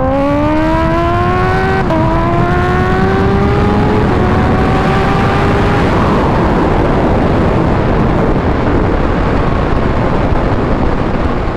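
Kawasaki H2 motorcycle's supercharged inline-four accelerating hard under full throttle, its engine note climbing and dipping slightly at upshifts about 2 and 4 seconds in. In the second half the engine is buried under heavy wind rush on the helmet or bike-mounted microphone.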